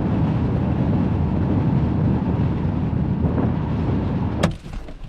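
Vehicle driving, a steady low road rumble that cuts off with a sharp click about four and a half seconds in.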